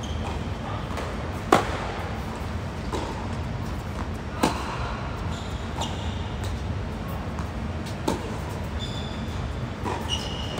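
Tennis ball hit back and forth in a singles rally: a series of sharp racquet strikes a few seconds apart, the loudest about one and a half seconds in, over a steady low rumble.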